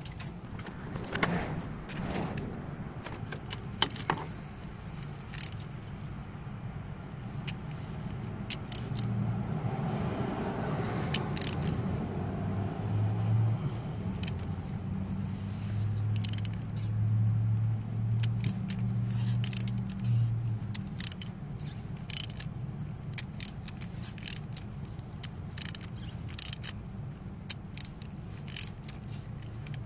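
Hand socket ratchet clicking in short runs while glow plugs are worked loose from a diesel cylinder head, with scattered metal-on-metal clinks of the tool and socket. A steady low hum runs underneath and is stronger in the middle.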